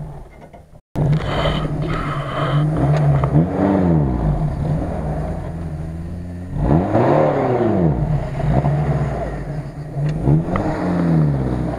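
Daihatsu Feroza's engine working under load as the SUV tries to pull out of deep mud. Three times the revs climb and fall back, between stretches of steady running, after a brief cut-out in the sound near the start.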